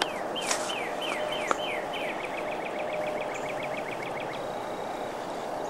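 A songbird singing: several clear whistles that slide down in pitch, then a fast run of short repeated notes that stops about four and a half seconds in. Underneath is a steady outdoor hiss with a few light clicks.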